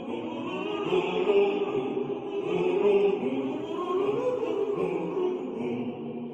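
Music with a choir of voices singing slow, wavering sustained notes, in an operatic, chant-like style.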